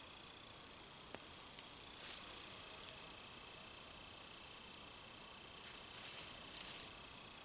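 Footsteps crunching on the forest floor: brief scuffing steps about two seconds in and again twice near the end, with a few sharp clicks like small twigs snapping between them.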